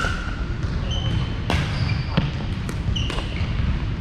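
Pickleball play on a hardwood gym court: sharp pops of paddles striking the plastic ball and the ball bouncing on the floor, several times a second or so apart, with short high sneaker squeaks between the hits over a steady low rumble.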